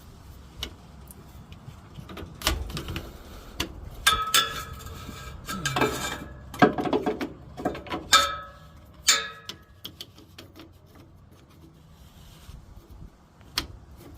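Scattered clicks, clinks and rattles of hands working at a Chevy Express shifter cable's clip and bracket, trying to press in its retaining tabs. The handling is busiest in the middle, with a few short metallic rings.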